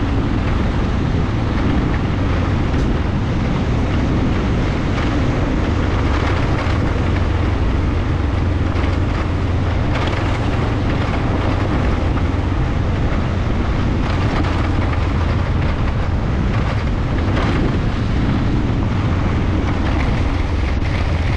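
Honda Dominator NX650's single-cylinder four-stroke engine running at steady revs while riding, over a constant rush of wind and tyre noise on a gravel road.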